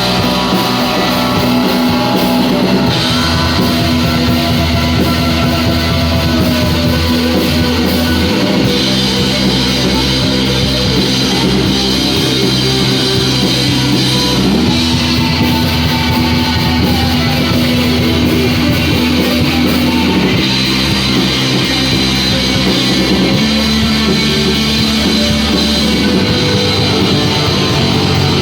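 Instrumental rock music: distorted electric guitars playing sustained chords that change every few seconds, over a drum kit.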